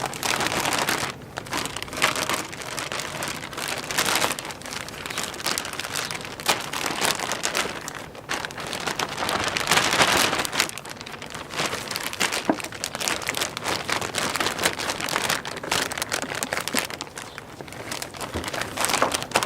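Plastic packaging bags crinkling and rustling as parts are unwrapped, a continuous run of small crackles that swells and fades.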